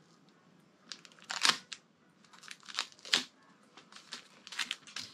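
Clear scotch tape being pulled off the roll and torn: several short crinkling rips, the last few bunched together near the end.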